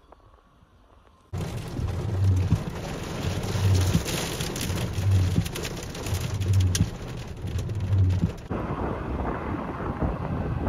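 Faint for about a second, then heavy wind-driven rain from a severe thunderstorm starts suddenly, with wind buffeting the microphone and a low throb about every second and a half. Near the end it changes to a duller rush of wind.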